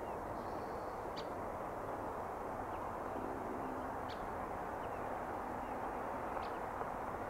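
Steady, even outdoor background rumble with a few short, high bird chirps scattered over it, three of them clearest.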